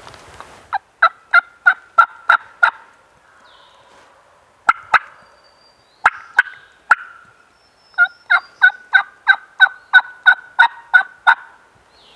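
Turkey yelping, loud and close: evenly spaced yelps about three a second, first a run of six, then a few scattered yelps, then a longer run of about a dozen near the end.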